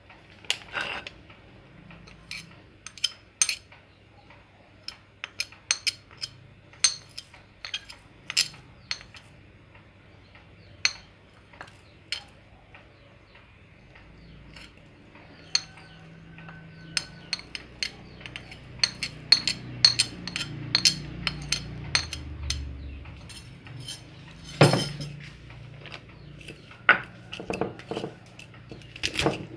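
Kitchen utensils and dishes clinking and knocking during food preparation: irregular sharp clinks, one or two a second, with a louder knock about two-thirds of the way through.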